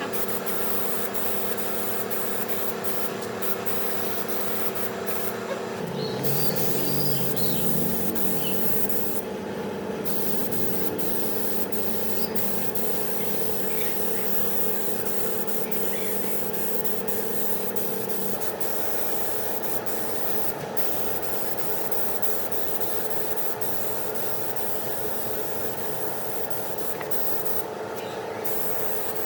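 Steady spraying hiss over a low, steady machine hum. The hiss breaks off briefly about ten seconds in and again near the end, and the hum changes about six seconds in and again around eighteen seconds.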